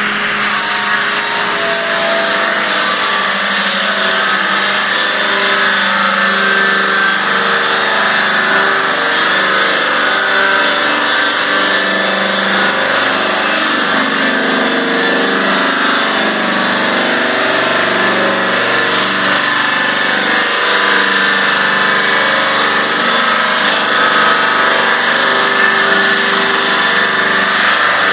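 Giant trimming circular saw with electric motors, running under load as its blades cut the outer slabs off an oversized log. It makes a loud, steady cutting noise over a humming drone that wavers in pitch as the blades bite into the wood.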